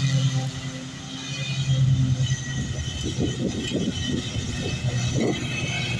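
Custom-built Toro TimeCutter zero-turn mower running steadily as it cuts grass, with the engine's even hum joined about halfway through by a rougher low rumble.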